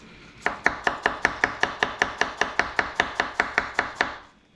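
Knife shredding green cabbage on a cutting board: quick, even chops about five a second, starting half a second in and pausing near the end.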